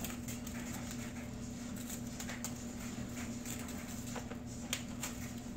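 Plastic packaging of raw chicken being opened by hand: light crinkling with a few sharp clicks, over a steady low hum.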